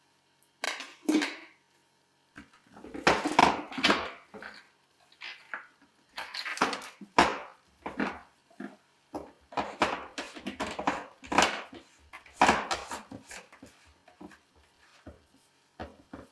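White plastic filter housings of a reverse osmosis water filter being handled and screwed onto the filter head: irregular scraping and rubbing of plastic on plastic, starting about half a second in, in uneven strokes.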